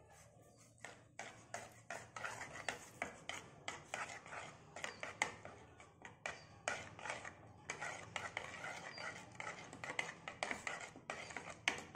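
Steel spoon stirring and scraping in a bowl, mixing yogurt with spices and a little water into a thin batter: a run of quick, irregular scrapes and clinks, starting about a second in.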